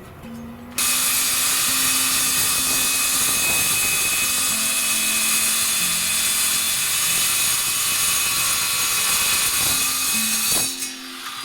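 A power tool starts abruptly about a second in, runs steadily with a harsh, hissy sound, and stops near the end.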